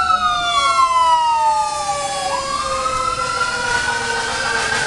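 Fire truck siren wailing. Its pitch falls slowly, then jumps up about halfway through and climbs again.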